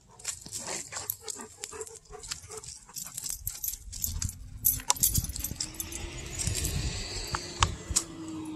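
Excited golden retriever whining on its leash, with collar tags and leash clips jingling and clicking. A passing vehicle's low hum builds from about halfway.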